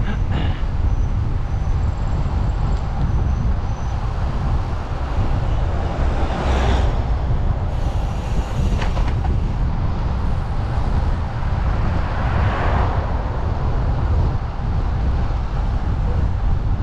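Steady low rumble of wind and road noise on a microphone riding along on a cycle, with a louder rush of noise about six seconds in and again around twelve seconds.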